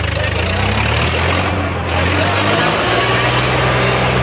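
Diesel engine of a Swaraj 963 tractor (a three-cylinder) running steadily under load as it pulls a trailer heaped with soil through soft ground.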